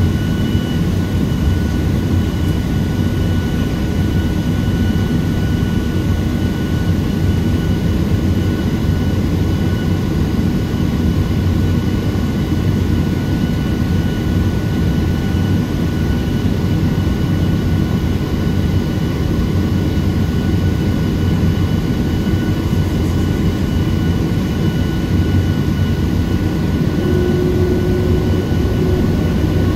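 Boeing 737-700's CFM56-7B jet engines running at taxi power, heard from inside the cabin: a steady low rumble with a thin, even high whine.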